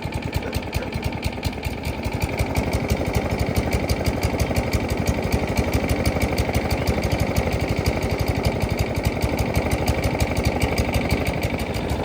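Kohler Courage XT overhead-valve engine on a Craftsman push mower running, a little louder from about two seconds in. Its automatic choke is not opening, and it runs as if it had a stopped-up air filter.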